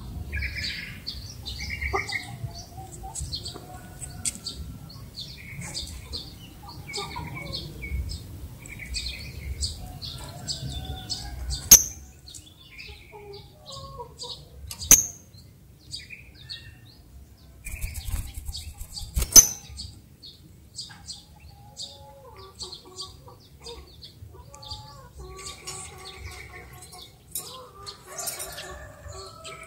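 Lovebird chattering in its long 'ngekek' song: rapid runs of short, high chirps, thinning out for a few seconds midway. Three sharp clicks cut through the chatter in the middle stretch.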